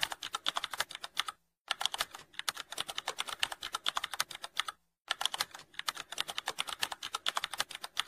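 Rapid typing sound effect: many key clicks a second in runs of about three seconds, broken twice by short pauses.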